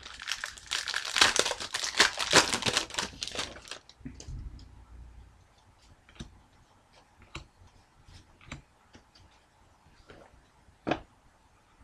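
Trading-card pack wrapper being torn open and crinkled for about four seconds, followed by scattered light clicks of the cards being handled, with one sharper click near the end.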